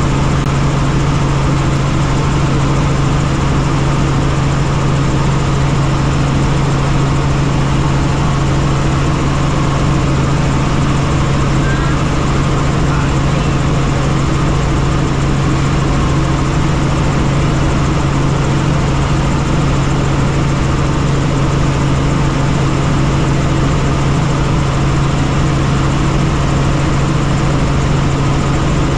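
Helicopter in flight: a loud, steady drone of rotor and engine with a strong low hum that holds unchanged throughout.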